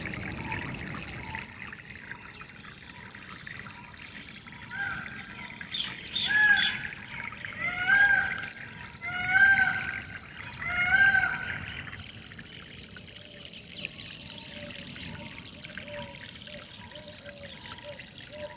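Water trickling and flowing steadily. A bird calls loudly about five times in a row, one arched note every second and a half or so, a few seconds in. Near the end a bird gives a quick run of short, lower notes.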